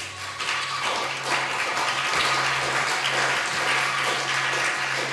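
Audience applauding, swelling in over the first second and then holding steady, over a low steady hum.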